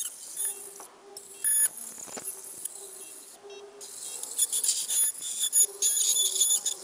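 Ultrasonic dental scaler cleaning a dog's teeth: a high-pitched whine that comes and goes as the tip works along the teeth, with the hiss of its water spray.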